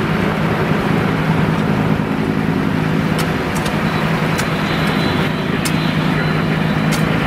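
An engine running steadily with an even low hum, typical of a parked vehicle left idling, with a few faint sharp ticks in the second half.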